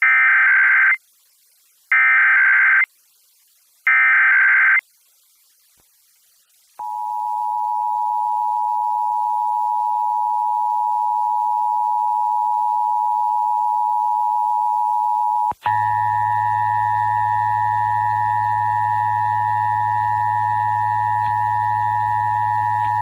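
Emergency Alert System test: three harsh, screechy bursts of digital SAME header data, each about a second long, then after a two-second gap a steady, loud EAS attention tone. Near the middle the tone cuts out for an instant and comes back with a second, higher tone and a low hum under it, running until just before the end.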